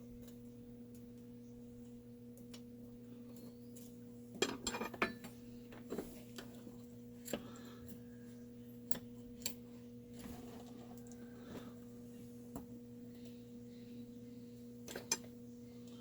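Light metallic clinks and clatters of tools and chainsaw parts being handled, a quick cluster about four seconds in and single taps after, over a steady low hum.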